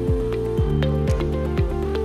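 Upbeat electronic background music with a steady beat, about two kick-drum hits a second, under sustained synth chords.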